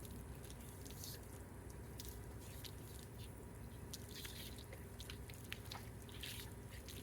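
Water from a hose shower-head nozzle running through a dog's wet fur, with many small scattered drips and splashes and brief swells of hissing spray.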